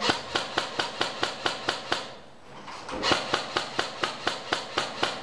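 Airsoft gun firing rapid shots, about six or seven a second, in two bursts of about two seconds each with a short pause between.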